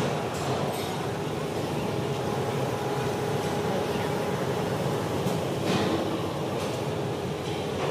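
Train noise: a steady rumble with a constant droning hum, and a short clank about six seconds in.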